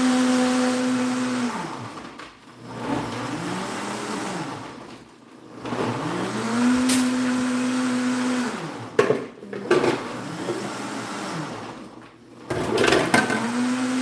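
Countertop blender blending a watermelon-rind green smoothie in repeated pulses of two to three seconds. Each time the motor spins up, holds a steady whine, then winds down before starting again. A couple of sharp knocks come about nine seconds in.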